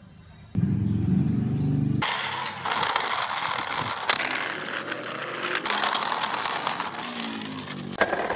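Engine sound of a car: a low engine rumble starts abruptly about half a second in, then at two seconds turns into a louder, steady rushing drive noise, with a rising whine near the end.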